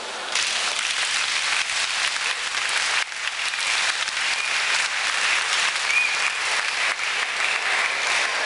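Audience applause breaking out just after the choir's last chord ends, dense and steady, with a few voices calling out in the second half.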